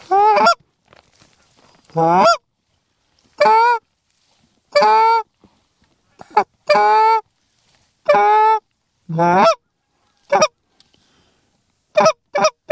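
Canada goose honks: about a dozen loud, separate honks and clucks one to two seconds apart, with three quicker short clucks near the end.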